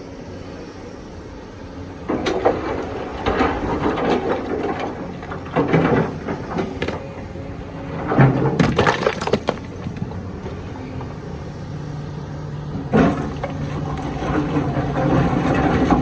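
Kobelco excavator working in rock: its steel bucket scrapes, grinds and cracks against stone in several rough bursts, over the steady hum of its diesel engine.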